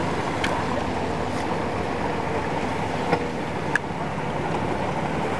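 Boat engine running steadily at low speed, with a few faint clicks.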